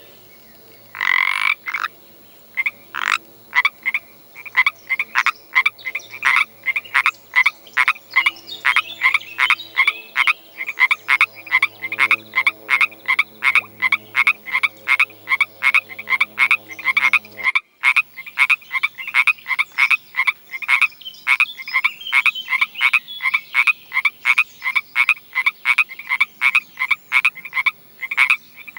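A frog croaking over and over in short, evenly spaced calls, about two to three a second, after one longer call at the start.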